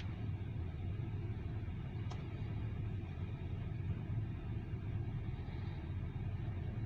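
Freight train of grain hopper cars rolling past: a steady low rumble, with a couple of faint clicks.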